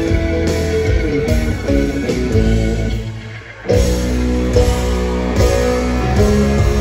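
Live country band playing an instrumental passage through a concert sound system, with electric guitars over bass and drums. About halfway through the band drops out for a moment, then comes back in loudly.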